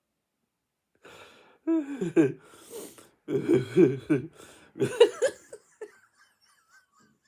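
A man's wordless vocal sounds in several loud bursts, starting about a second in and trailing off after about five seconds.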